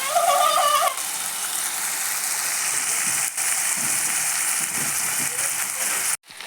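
Chopped vegetables sizzling as they fry in hot oil in a pan, a steady hiss. A brief wavering pitched sound comes in the first second, and the sizzle cuts off abruptly shortly before the end.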